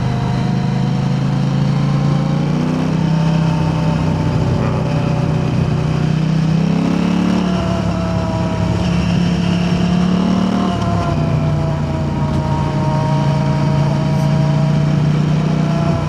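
KTM 890 Adventure R's parallel-twin engine running through an Arrow Race-Tech aluminium exhaust while riding: the engine note climbs a few seconds in, climbs again about seven seconds in, then eases off near eleven seconds and holds steady.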